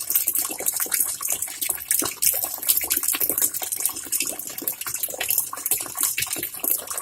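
Tap water pouring from a hose into the wash tub of a Godrej semi-automatic washing machine, a steady splashing gush as the tub fills.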